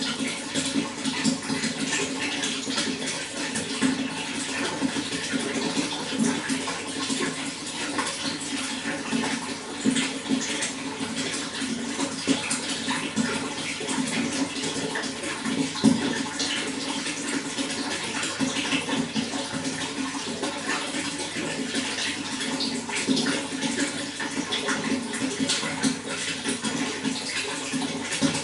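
Running water pouring and splashing steadily, with a full low rushing undertone and many small splashes.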